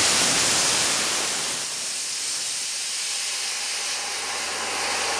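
High-pressure compressed air hissing out of the Air Venturi compressor's open bleed valve as the system is purged after shutdown. The hiss is strongest at first and thins after about two seconds into a steady, high hiss.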